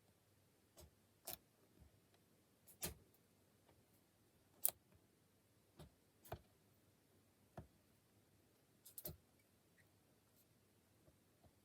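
Lock pick and tension tool working the pin tumblers of an old Burg 217/50 padlock: sparse, irregular small metallic clicks as pins are lifted and set, one sharper click about halfway through, over near silence.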